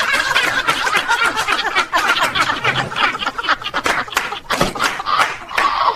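Several people laughing and snickering together, in dense, overlapping laughter.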